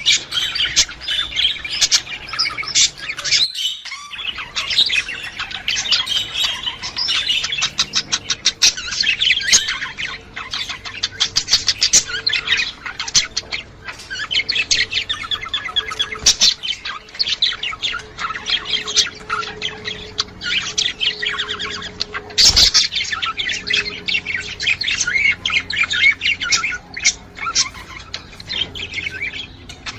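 Budgerigars chattering and warbling: a dense, unbroken stream of rapid chirps and squawks, the budgie chatter used to encourage a hen to breed. There is a short lull about four seconds in and a single sharp click about two-thirds of the way through.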